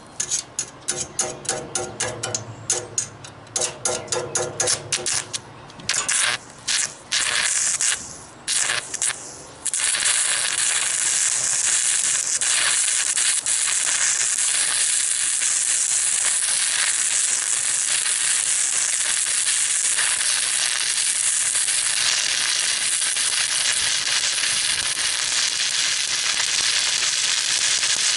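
Arc of a stick (SMAW) welder with a 3/32-inch rod. For the first ten seconds the arc catches and breaks in short, choppy spurts while it is being struck. About ten seconds in it settles into a steady crackling sizzle as the bead is run.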